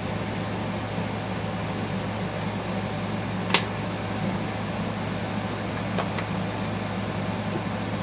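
Steady low mechanical hum, with one sharp click about three and a half seconds in and a fainter click near six seconds.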